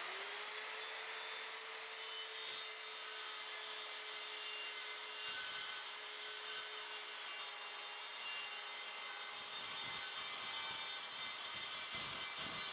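Evolution R185 CCSL circular saw with its TCT multi-material blade cutting through a 12 mm acrylic sheet: a steady motor whine that comes up to speed at the start, over the hiss of the blade chewing the plastic.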